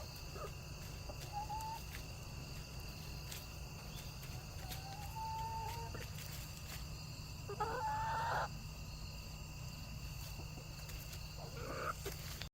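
Chickens making a few short calls over a steady low hum. The loudest, a harsher call about a second long, comes about two-thirds of the way through.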